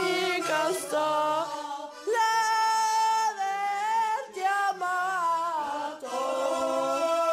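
Several voices singing a melody together, holding long notes, with short breaks about two seconds in and again about six seconds in.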